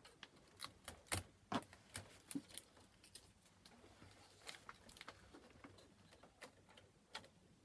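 Faint, irregular clicks and rustles of hands pulling blue shipping tape off an Epson EcoTank inkjet printer and handling its plastic lid and casing.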